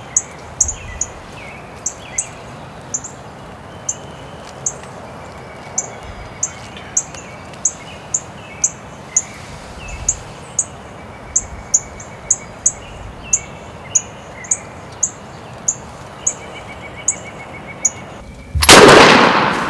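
A small bird chirps over and over, about two high chirps a second, with fainter birdsong behind it. Near the end a single shotgun blast goes off, by far the loudest sound, ringing out for about a second.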